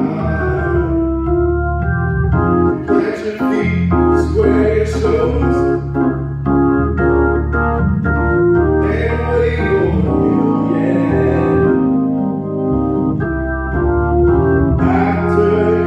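Organ music: an organ playing held chords that change every second or so, with a few brighter hissy swells.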